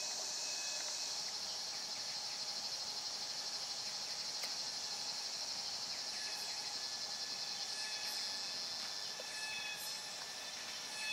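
Steady high-pitched drone of forest insects, with short thin whistled notes breaking in now and then.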